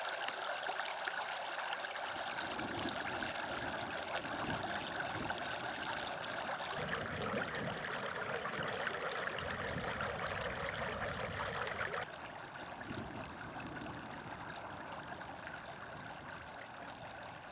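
Stormwater running steadily, welling up through a manhole in a grass verge and flowing along the road edge: the drains overloaded by heavy rain. The sound changes about seven seconds in and gets quieter about twelve seconds in.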